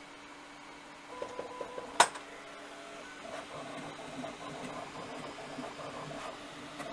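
Bambu Lab 3D printer resuming a paused print. A few short ticks and a sharp click come about two seconds in, then the stepper motors whine as the toolhead moves over the bed.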